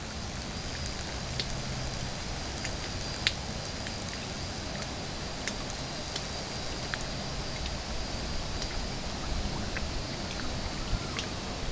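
Steady outdoor hiss with scattered short ticks, and a faint high steady whine for several seconds in the middle.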